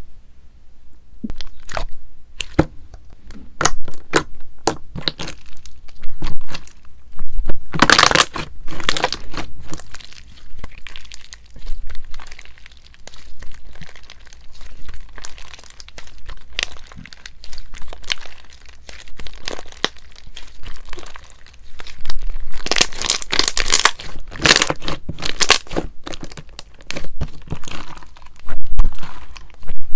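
Thick, soft slime with small beads worked by hand: poked, stretched and pulled apart, giving a run of sharp clicks, pops and crackles. Denser crackling and tearing come about 8 seconds in and again from about 22 to 26 seconds.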